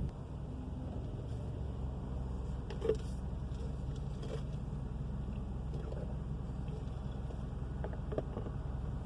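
2000 Subaru Legacy AWD on the move, heard from inside the cabin: a steady low drone from the rear end with a few faint light ticks. This is the mystery roaring noise, which is still there with new rear brakes, calipers, rotors and wheel bearing.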